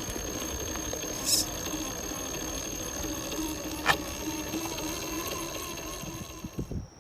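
Small electric motor and gears of a 1/10-scale RC crawler running with a faint wavering whine over outdoor background noise, with a sharp click about four seconds in.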